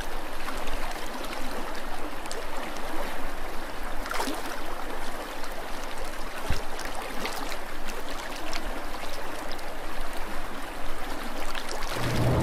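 Water trickling and gurgling steadily, with a few faint clicks and one short low knock about six and a half seconds in.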